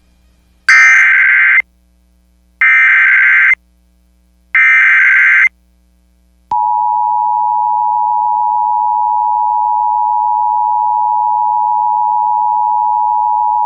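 Emergency Alert System SAME header: three identical bursts of digital data screech, about a second each. A little later comes the steady two-tone EAS attention signal (853 and 960 Hz), which opens a broadcast severe thunderstorm warning.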